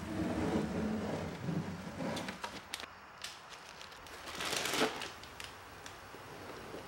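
Old paper drawer liner being peeled and torn off the bottom of a wooden drawer, crinkling, with one loud rip about four and a half seconds in.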